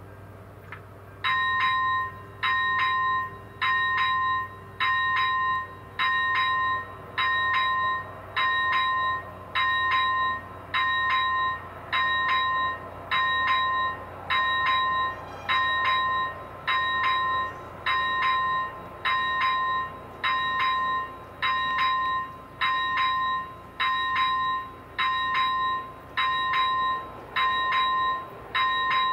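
Railway level-crossing warning bell of an AŽD 71 crossing signal, starting about a second in and ringing steadily, about one ring a second. The crossing has just been activated and is warning of an approaching train.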